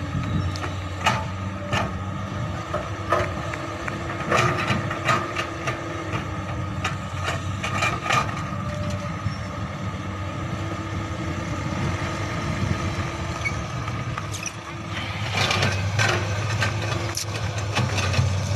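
Komatsu hydraulic excavator's diesel engine running steadily while loading soil into a dump truck, with scattered sharp knocks and clanks. From about fifteen seconds in, a louder truck engine takes over as loaded dump trucks drive off.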